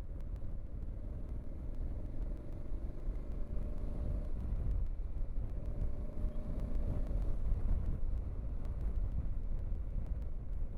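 Steady low rumble of a vehicle on the move, with a faint wavering hum in the middle.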